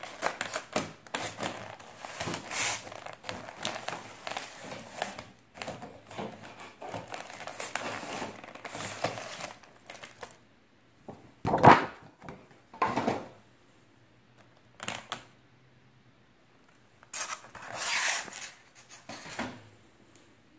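Clear plastic packaging crinkling and rustling as a model locomotive is worked out of its plastic tray and foam cradle. It is a dense, crackly rustle for about the first ten seconds, then a few separate louder rustles and scrapes.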